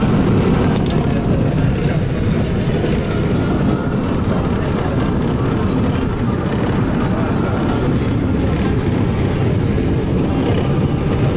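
Steady engine and road noise heard from inside a moving bus, a dense low rumble that holds level throughout.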